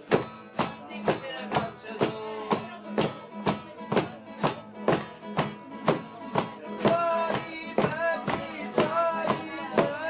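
Music with a steady beat of about two strokes a second, and a higher melody coming in over it about seven seconds in.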